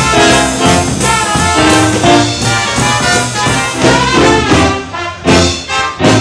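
Live band of saxophones and brass playing a tune of short, separated notes.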